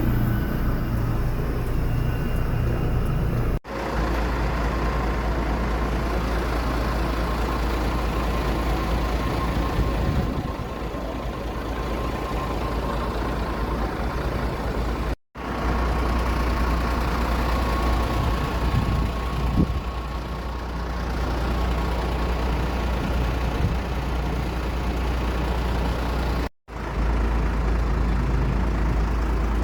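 Steady low rumble of aircraft engines running, with a thin steady whine over it. The sound drops out briefly three times where the recording is cut.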